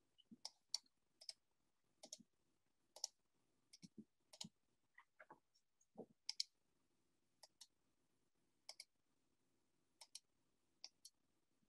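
Faint, irregular clicks of a computer mouse, about eighteen short clicks spaced unevenly.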